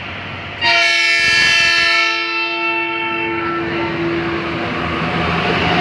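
Bus's Basuri telolet multi-tone air horn sounding one long, steady blast that starts suddenly about half a second in, loudest for the first second and a half, then fading out, over the steady noise of traffic.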